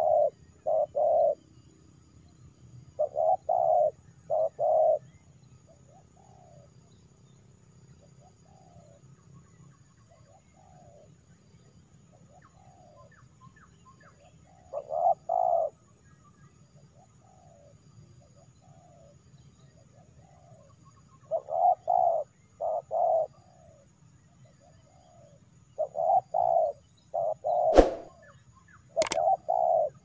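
Spotted doves cooing: loud phrases of two or three low notes repeated every few seconds, with fainter coos in between. Two sharp clicks near the end.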